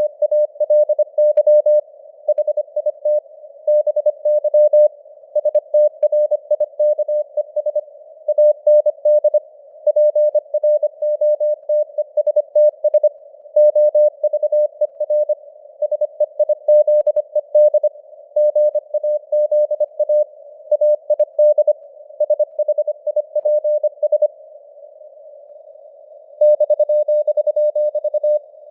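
Morse code (CW) sent at 25 words per minute: a single mid-pitched tone keyed in quick dots and dashes over a narrow band of simulated radio hiss. Near the end the keying pauses for about two seconds of hiss only, then a tone is held steadily for about two seconds.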